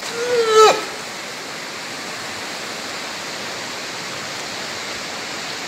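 Steady rushing of a fast, muddy river in flood, swollen with rainy-season water and churning over rocks. A brief voiced exclamation sits over it in the first second.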